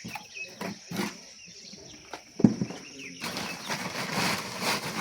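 A few sharp knocks, the loudest about two and a half seconds in, then a steady noisy hiss that starts abruptly about three seconds in.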